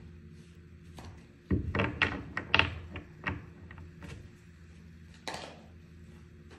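A cluster of sharp knocks and clicks, with a short rustling swish about five seconds in, over a faint steady hum.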